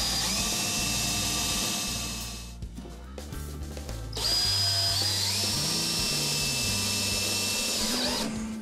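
DeWalt 18-volt cordless drill running in two runs, pre-drilling and fastening into a trailer's front-wall post: the first winds down about two seconds in, the second spins up about four seconds in and stops near the end. Background music plays underneath.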